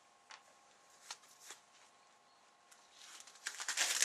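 Handling noise: a few light clicks, then a rustling, scraping sound that grows louder near the end and cuts off suddenly, over a faint steady hum.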